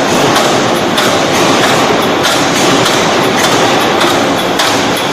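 Hydraulic open-die forging hammer striking in a steady rhythm, a little under two blows a second, over continuous machine noise.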